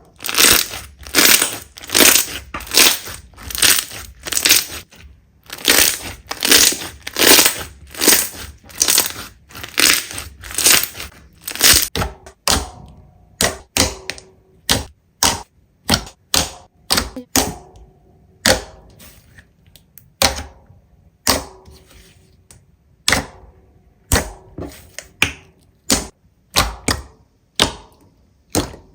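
Slime being squeezed and pressed by hand, giving repeated crackling pops about one and a half times a second. About twelve seconds in, the pops turn shorter and sharper, more like clicks.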